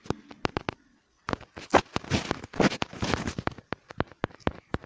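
Irregular sharp clicks and crackles, with a few short bursts of rustling noise between about one and three and a half seconds in.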